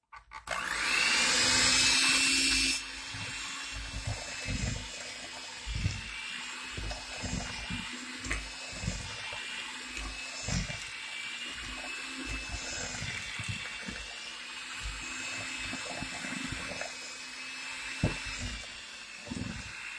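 Electric hand mixer switched on about half a second in and running steadily with a motor whine, louder for the first couple of seconds. Its beaters churn butter and cream cheese in a plastic bowl, giving irregular low knocks as sugar is beaten in.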